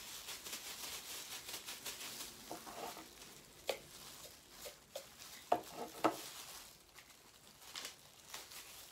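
Clear plastic rustling and crinkling as gloved hands press and shape a rice ball, with three sharp light knocks between about three and a half and six seconds in.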